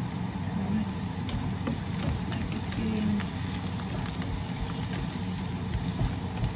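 Sliced onions and garlic sizzling in oil in a frying pan over a gas burner, with a steady low hum underneath. About four seconds in, a spatula starts stirring and scraping them around the pan.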